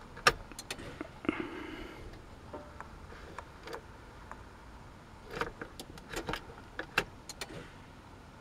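Sharp clicks of dashboard switches in a truck cab, with a short electric whir about a second and a half in and a cluster of further clicks in the second half; the engine is not running.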